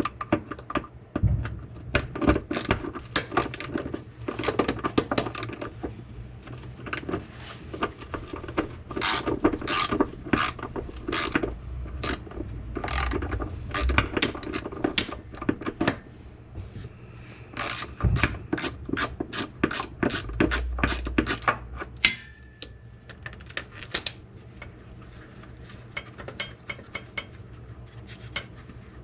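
Hand ratchet wrench clicking in runs of quick strokes, working the nuts of a BMW E46 transmission mount. The ratcheting stops about 22 seconds in, leaving only faint, scattered clicks.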